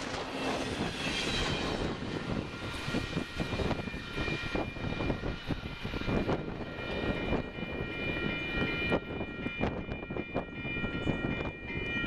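Tail end of a double-stack intermodal container train rolling past and away, with strong gusty wind buffeting the microphone. A steady high ringing tone comes in a couple of seconds in and holds.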